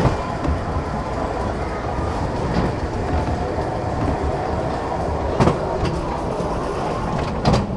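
Ghost train car rumbling and clattering along its track, with a faint steady whine and two sharp knocks, one about halfway through and one near the end.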